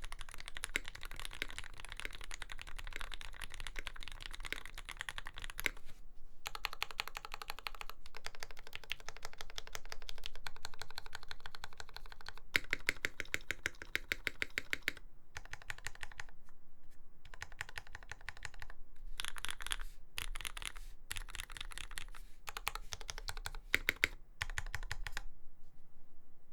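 Fast typing on a custom Lyn Dolphin V3 mechanical keyboard with lubed Gateron Fei switches (black Cherry top housings), an aluminium plate and GMK Dolch keycaps. The keystrokes come in dense runs broken by short pauses, and the typing stops about a second before the end.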